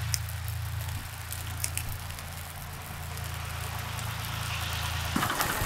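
Wood fire crackling with sharp scattered snaps under a cooking pot, over the steady low drone of an idling engine. About five seconds in the drone stops and a louder, uneven rumble starts.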